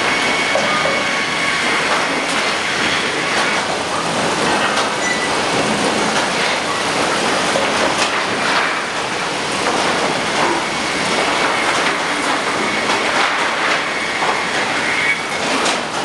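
Sawmill lumber stacker and board conveyors running: a steady mechanical clatter of chains and boards, dense with small knocks and rattles, with a faint whine at times.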